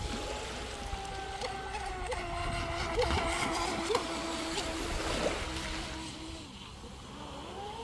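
Electric RC speedboat running on the water: a motor whine that dips slightly in pitch and dies away about six seconds in, with a hiss of spray and a few sharp slaps of the hull on the water. The whine rises again near the end.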